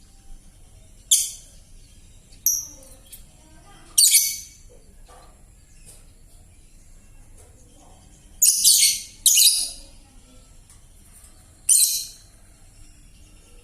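Young lovebird giving short, harsh, raspy chirps, about six of them with gaps between, two in quick succession past the middle. The rasp is the hoarse, off-key chatter of a bird still under five months old.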